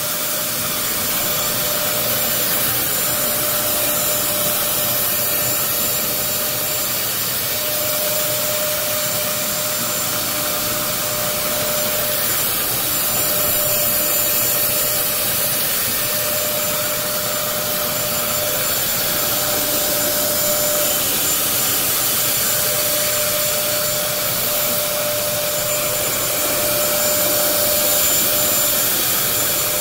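Upright floor cleaner's suction motor running steadily, a continuous rush of air with a thin, steady whine.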